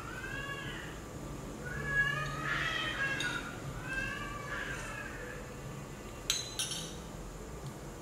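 A cat meowing three times, each meow rising and then falling in pitch. About six seconds in come two quick clinks of a metal spoon against a glass bowl.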